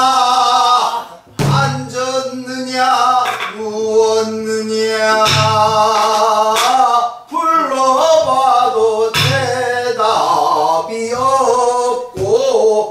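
A man singing a Namdo (southwestern Korean) folk song in long, wavering, sustained notes, with occasional strokes on a buk barrel drum.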